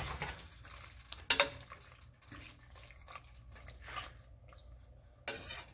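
Water poured into a steel pressure cooker over the mutton masala, with a sharp metal clink about a second in and a short splash near the end.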